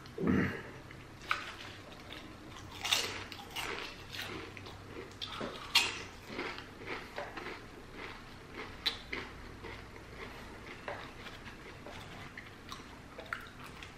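Close-up chewing of a turkey sub and potato chips: irregular crisp crunches and mouth sounds, the loudest about three and six seconds in. A brief low sound comes right at the start.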